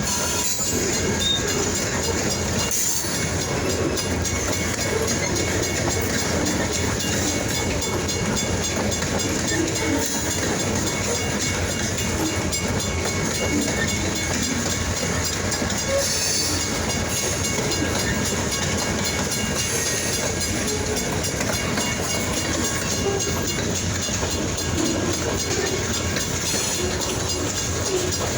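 A freight train rolling past, its wheels running steadily on the rails.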